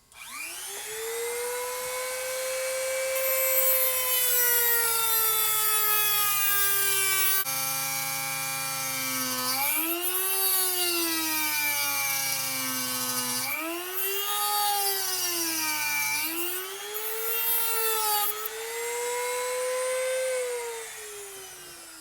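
High-speed power tool cutting through a seized spindle bearing to get it off the shaft. The motor whine rises as it spins up at the start, drops in pitch several times as the wheel bites under load and recovers, and winds down near the end.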